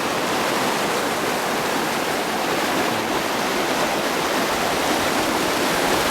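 Loud, steady rush of a stream and waterfall, with no break.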